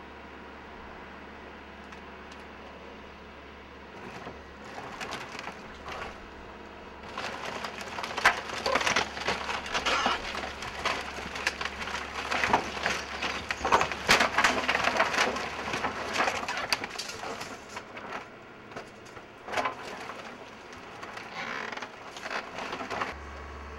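Wooden demolition debris being crushed by an excavator: a dense run of cracking, splintering and crunching wood that swells about seven seconds in and is loudest through the middle, then thins out, over a low steady hum.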